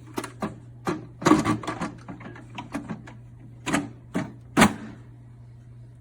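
A quick irregular run of sharp clicks and knocks, about a dozen, the loudest near the end, over a steady low hum.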